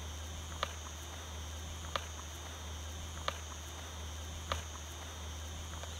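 Steady high-pitched insect drone, with a sharp click about every second and a quarter and a low steady rumble underneath.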